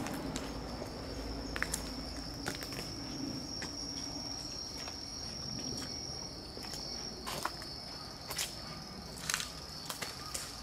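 Insect calling with one steady, unbroken high-pitched trill, with scattered footsteps scuffing on leaf-strewn concrete, coming more often in the second half.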